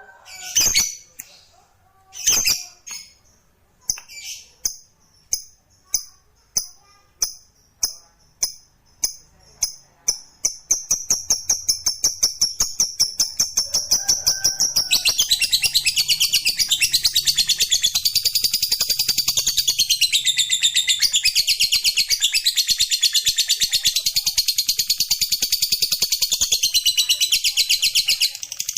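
Lovebird giving a long 'ngekek' call. It starts as separate sharp chirps about two a second, which quicken into a rapid trill about ten seconds in. From about fifteen seconds in it becomes a loud, dense, unbroken high chatter that stops just before the end.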